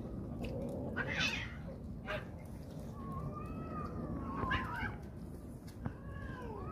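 Several hungry stray cats meowing as food is handed out, one call after another with some overlapping, including a long, drawn-out falling meow in the middle. A steady low rumble runs underneath.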